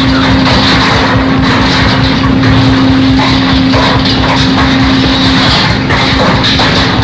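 Harsh noise music: a loud, unbroken wall of distorted noise with a steady droning tone underneath that weakens about two-thirds of the way through.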